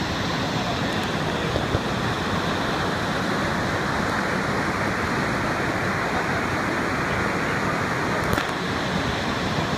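Waterfall swollen with muddy floodwater, pouring with a steady, unbroken rush.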